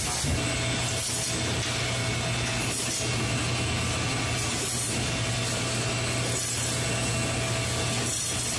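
Steady machinery noise of a poultry processing line, with its overhead shackle conveyor and processing machines running and a constant low hum.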